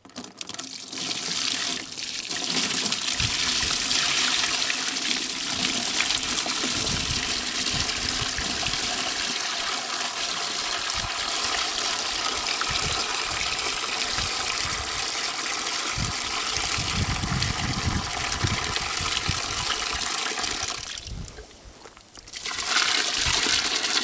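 Liquid pouring or running steadily. It stops for a second or so near the end, then starts again.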